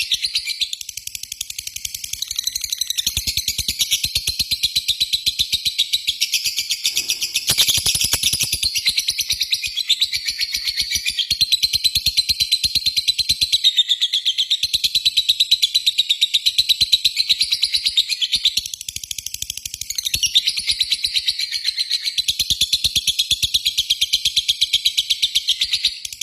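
Lovebird giving a long, very rapid chattering trill (the 'ngekek' song), a fast run of repeated high chirps that goes on almost without a break, with a few short pauses.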